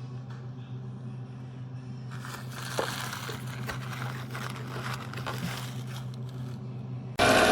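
Electric meat grinder (STX Turboforce Classic 3000) running with a steady motor hum. A rough grinding noise with scattered clicks builds from about two seconds in.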